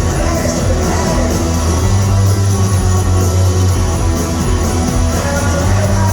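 Live rock band playing loudly with a steady beat: electric guitar over bass and drums.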